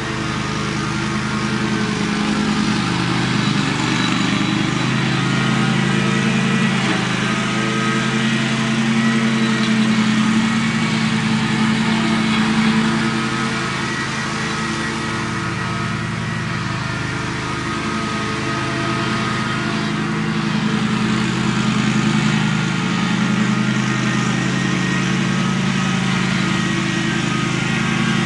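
Ride-on lawn mower engine running steadily while mowing thick, overgrown grass, swelling louder and easing off again as the mower moves around the yard.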